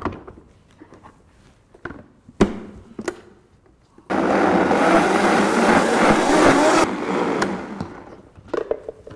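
Countertop blender puréeing a jar of chopped raw vegetables and fruit with liquid. It starts abruptly about four seconds in, runs for about three seconds, then cuts out and fades over the next second. A sharp knock comes about two and a half seconds in.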